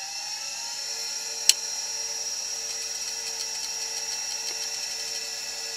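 A 40 MB Conner SCSI hard drive spinning up on power-up: its motor whine rises and settles into a steady high tone, with one sharp click about a second and a half in and then rapid faint ticking of the heads seeking. The drive stays spinning this time instead of spinning straight back down.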